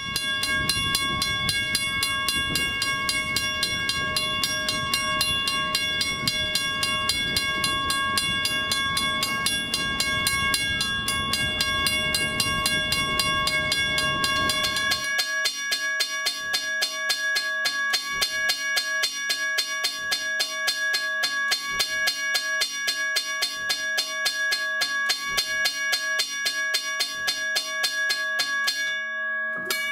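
Western Railroad Supply 222 mechanical level crossing bell ringing with rapid, even strikes over a low outdoor rumble. About fifteen seconds in it gives way to a Federal Signals mechanical crossing bell, struck just as rapidly but with a cleaner, different tone.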